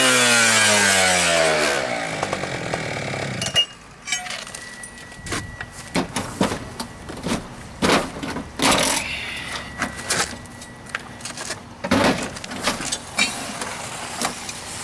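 Fire rescue cut-off saw winding down after a cut through carriage bolts, its pitch falling steadily for about three and a half seconds before it stops. Then a series of scattered metal clanks and knocks.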